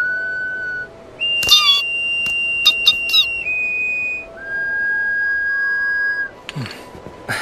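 A small ocarina-like vessel flute playing a slow tune: a few long, pure, high notes, each held for a second or two before stepping to the next. Short chirping squeaks cut in over it about one and a half seconds in and again around three seconds in.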